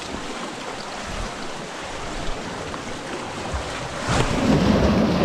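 Ocean waves washing in on a rocky shore: a steady rush of surf, with a bigger wave surging in about four seconds in.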